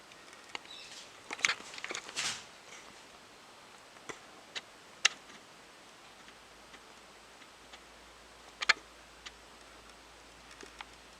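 Scattered light clicks and ticks over a faint steady hiss, with a brief rustling cluster of taps about a second in.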